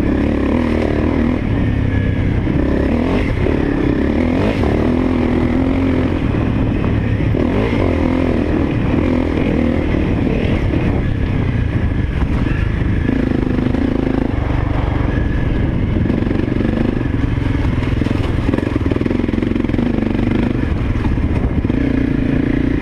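Honda CRF250L's single-cylinder four-stroke engine running under changing throttle while the bike is ridden along a trail, its pitch rising and falling.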